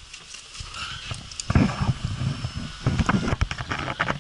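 Camera handling while stepping out of a vehicle: irregular knocks, rustling and clicks, with wind buffeting the microphone.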